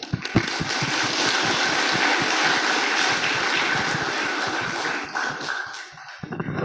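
Audience applauding, a dense patter of many hands clapping that starts at once and dies away after about five seconds.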